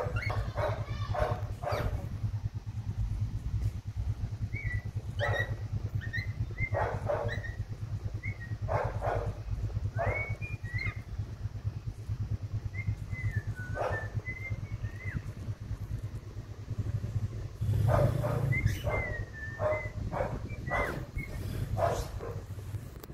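Young cockatiel mimicking sounds: short harsh bark-like calls in irregular bunches, mixed with brief whistled chirps and little up-and-down glides. A steady low hum runs underneath.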